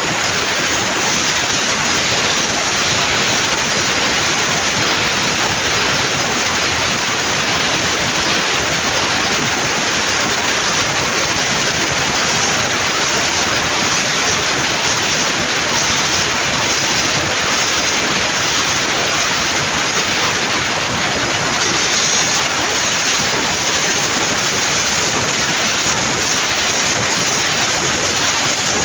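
1 kW CNC fiber laser cutting machine cutting metal: a steady, loud hissing rush that does not let up.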